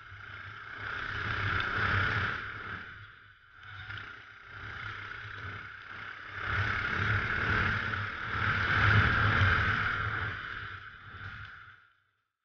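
Racing kart engine heard from an onboard camera, with wind and road noise, rising and falling as the kart accelerates and lifts through corners. It cuts off suddenly near the end.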